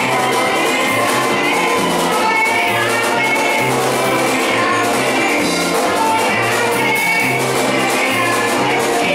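Live gospel praise music: women singing into microphones over electronic keyboard and drums, with a stepping bass line and a steady drum beat.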